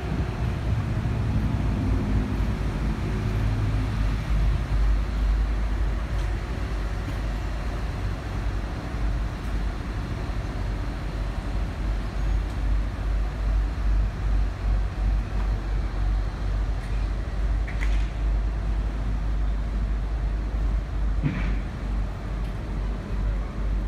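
Diesel engine of a canal motor barge passing close by, a low hum that fades after about five seconds, over a steady low rumble of wind buffeting the microphone.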